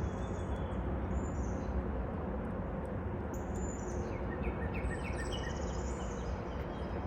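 Small birds chirping in the background over a steady low outdoor rumble, with a quick run of about five short notes about four seconds in.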